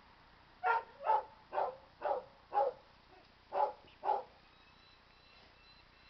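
Seven short bark-like animal calls, about half a second apart, with a brief pause after the fifth.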